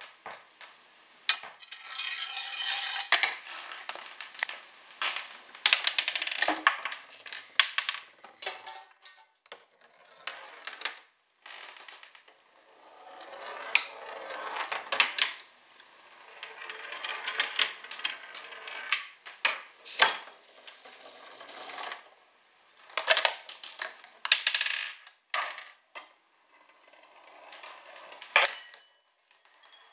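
Homemade chain-reaction machine running: small hard objects roll, rattle and clatter along it, with many sharp knocks and clinks as one part sets off the next.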